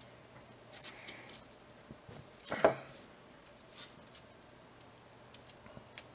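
Handling sounds of a mesh-loom-covered wiring cable being pulled and laid out on a cloth-covered table: a few light clicks and rustles, with one louder knock about two and a half seconds in.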